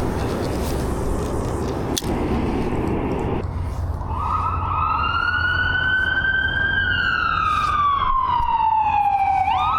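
Emergency vehicle siren wailing, starting about four seconds in: a slow rise, a long slow fall, then a quick climb again near the end, over a steady low rumble.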